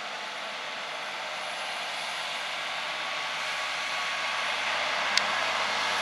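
Case tractor pulling a tandem disc harrow through a field, the engine and the disc gangs in the soil making a steady drone that grows louder as the rig comes closer. A single sharp click about five seconds in.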